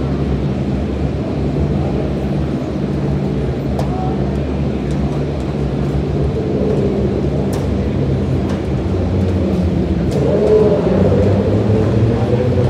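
Vehicle engines running steadily at low revs, a continuous low drone with no revving, getting a little louder near the end.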